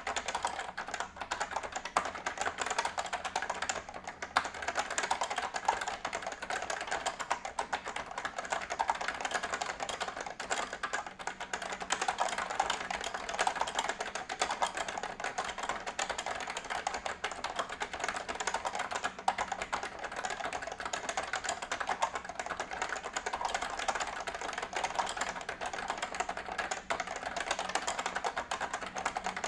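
Fast, continuous typing on an Omron F300-K keyboard with linear Fujitsu leaf spring (3rd generation) switches: a dense, steady stream of key clacks without pause.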